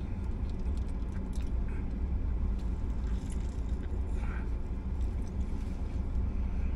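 A man biting into and chewing a crispy fried chicken sandwich, with scattered small crunching and mouth clicks, over a steady low rumble inside a car.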